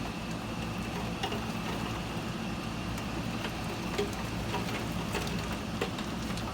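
Steady low hum with a faint high tone over it, dotted with scattered light ticks.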